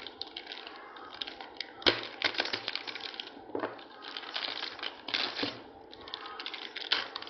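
Plastic packaging of a new hard drive crinkling and rustling as it is unwrapped by hand, with irregular clicks and a sharp tap about two seconds in.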